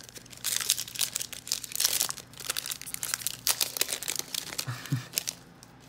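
Foil Magic: The Gathering collector booster pack wrapper being torn open by hand, crinkling and crackling for most of the few seconds.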